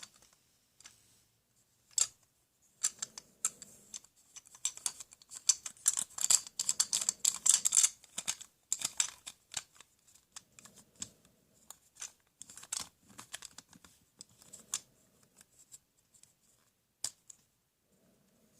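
Plastic toy tools being handled: irregular clicking and rattling, densest about halfway through, then thinning out.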